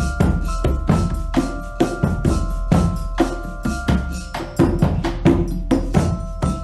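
Instrumental music built on percussion: a steady beat of sharp drum hits about four a second over a low drum, with ringing pitched tones held above it.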